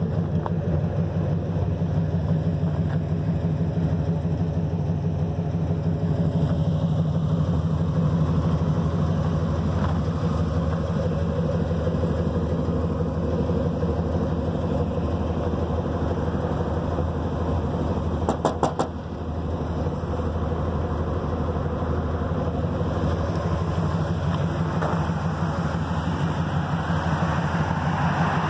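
Engine of a square-body Chevrolet dually pickup idling steadily. A quick run of about four clicks sounds about two-thirds of the way through.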